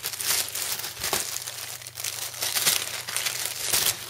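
Thin plastic bag crinkling and rustling as it is handled and pulled open, with many irregular crackles.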